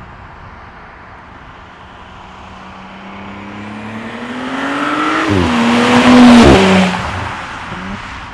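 Audi B9 S4's turbocharged 3.0-litre V6, its centre muffler replaced by an X-pipe, accelerating toward and past in a flyby. The note climbs, dips sharply once at a gear change about five seconds in, and is loudest as the car goes by, then falls away.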